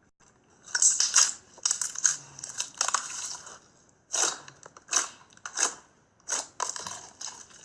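Slime being squeezed and pressed by hand, giving a string of irregular crackling, crunching bursts.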